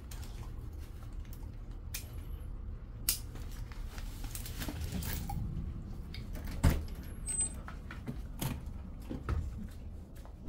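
Scattered light clicks and clinks over a low steady hum: a dog in a harness moving about on a mat, its metal harness fittings clinking.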